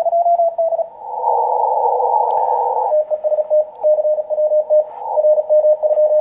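Morse code (CW) signal heard through a Kenwood TS-890 HF transceiver's narrow 500 Hz filter: band hiss, then from about three seconds in a single steady tone keyed on and off.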